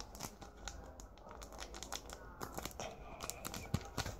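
Faint crinkling and rustling of a small homemade bag being handled, with many irregular small crackles.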